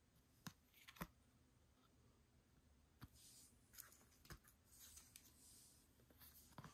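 Faint handling of cardstock photocards and paper inserts: a few light clicks and taps as cards are picked up and set down, with soft papery rustles between them.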